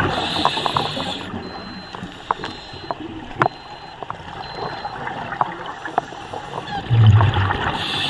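Underwater sound from a scuba diver's camera: a steady hiss with scattered sharp clicks and crackles, and a louder low rush of exhaled regulator bubbles about seven seconds in.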